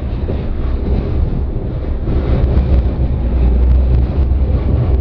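Tram running along its track, heard from on board: a steady low rumble with wind buffeting the microphone.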